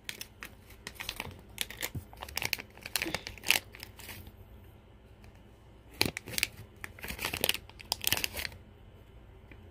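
Slime being grabbed and pulled out of a small plastic toy container by hand: irregular crackling and crinkling handling noise in two spells, from just after the start to about four seconds in, then again from about six to eight and a half seconds.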